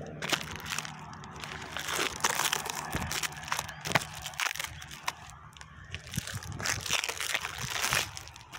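Plastic wrap and tape crinkling and crackling as they are pulled off an air layer on a guava branch, with many small sharp clicks.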